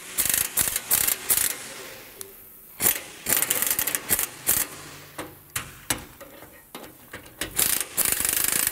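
Ratchet wrench clicking in rapid bursts as fasteners are turned. Near the end comes a longer continuous run that cuts off abruptly.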